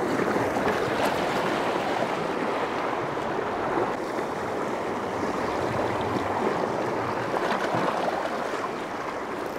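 Sea surf washing against a rocky shoreline: a steady rushing of water.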